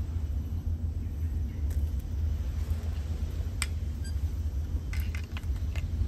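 Steady low rumble, with a few short light clicks about halfway through and again near the end.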